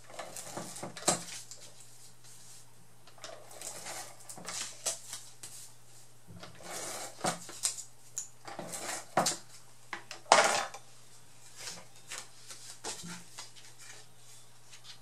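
Handheld adhesive tape gun (Scotch ATG-style tape glider) run across cardstock in a series of short strokes, laying double-sided adhesive, with paper being handled and set down on a cutting mat. The loudest stroke comes about ten seconds in and lasts about half a second.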